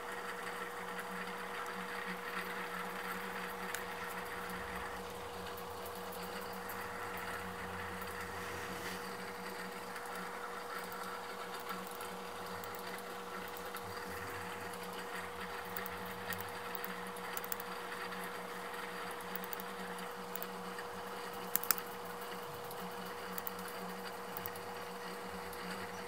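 Steady hum with a constant faint whine over a low hiss, indoor room tone, with one short click late on.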